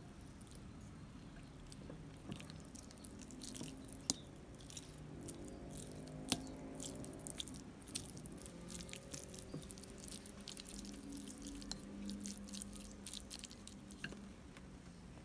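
Wooden fork mashing soft tofu in a ceramic bowl: faint squishing and crumbling with many quick light clicks and taps of the fork against the bowl.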